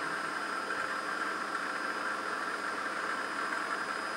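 Drilling machine running steadily with an even hum and whine while its bit shaves a slit through an aluminium body.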